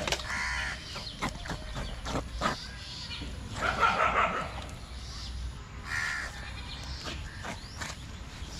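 A few short animal calls, the loudest about four seconds in, over a low steady background rumble.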